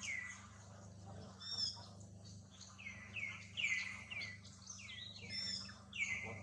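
Small birds chirping in quick, downward-sweeping calls, a few each second, over a faint steady low hum.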